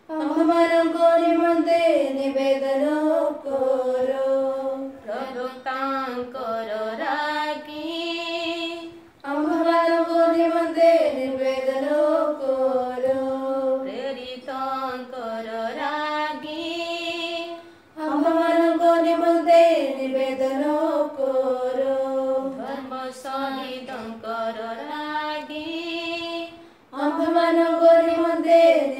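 Sung Odia litany to the Virgin Mary: voices chant the same melodic phrase four times, each about nine seconds long with a short break between.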